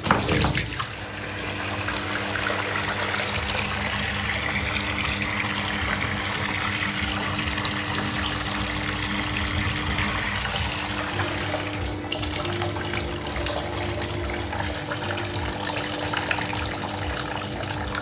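Water running and swirling into a sink basin, stirred by hand, after a short knocking clatter in the first second. A steady low hum runs underneath.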